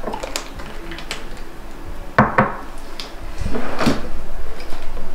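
A drawer being opened and shut, with clicks and knocks from a small bottle being handled and set down. The loudest knocks come about two seconds in and again about three and a half seconds in.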